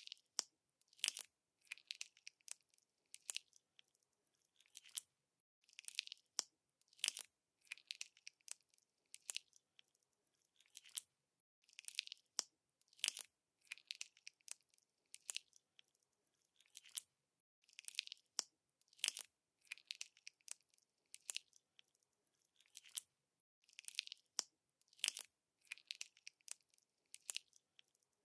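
Slime being squeezed and kneaded by hand, giving short bursts of crisp crackling clicks about one to two a second with quiet gaps between.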